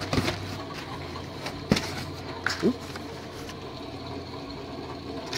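Cardboard box and crumpled packing paper being handled: light rustling with a few sharp knocks and a short squeak, quieter near the end, over a steady low hum.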